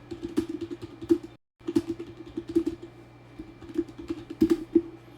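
Computer keyboard typing: irregular clicks of keys over a steady low hum, with the audio dropping out completely for a moment about a second and a half in.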